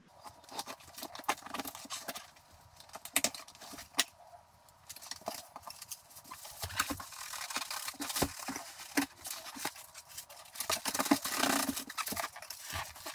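A cardboard box holding a glass bowl set being opened and unpacked by hand: packaging rustling and scraping, with many sharp clicks and knocks throughout, busiest in the second half.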